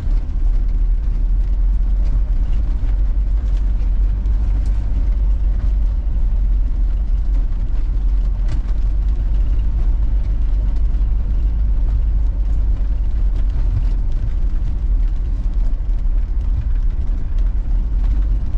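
Troller 4x4 driving along a rough rural road: a steady, loud low rumble of engine and road, with a couple of light knocks about four and eight seconds in.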